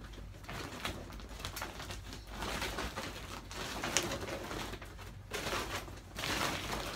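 Clear plastic bag rustling and crinkling in repeated surges as clothes are stuffed into it.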